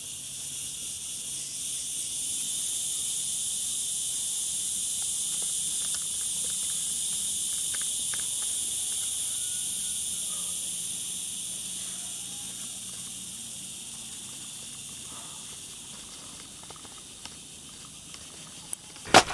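Insect chorus: a steady, high-pitched buzz that swells over the first few seconds and fades toward the end. A couple of sharp clicks come right at the end.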